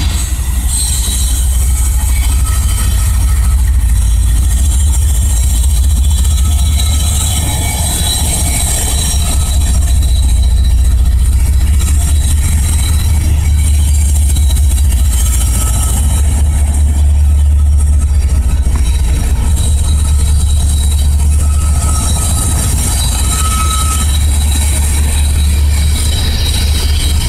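Freight train passing: diesel locomotives and then double-stack container well cars rolling by with a steady, heavy low rumble. A faint wheel squeal comes a few times in the second half.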